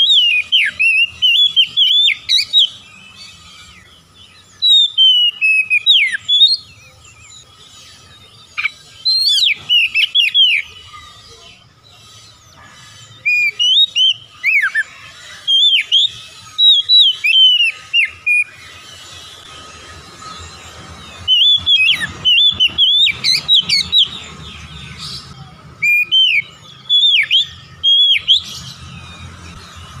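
Oriental magpie-robin (kacer) singing: bursts of clear whistled notes that slide up and down, each phrase two to three seconds long with short pauses between.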